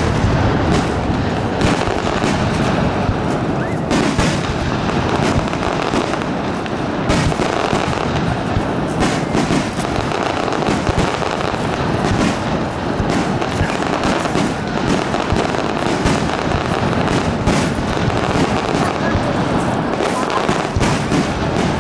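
Fireworks going off in a dense, continuous volley: many overlapping bangs and crackles of coloured senrin (thousand-ring) shells bursting, each shell scattering many small secondary bursts.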